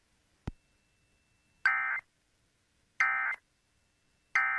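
Emergency Alert System end-of-message signal: three short bursts of SAME digital data tones, a harsh buzzing screech, spaced a little over a second apart after a single click. The bursts mark the end of the alert message.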